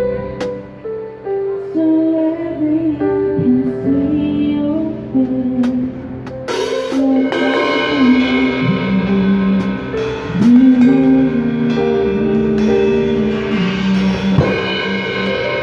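Live band music with a sung melody over sustained instruments, the drum kit adding scattered hits and cymbal washes, fuller from about halfway through.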